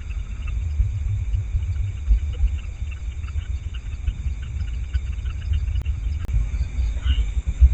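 Low, uneven rumble on the microphone, with a steady chirping of crickets and other insects above it.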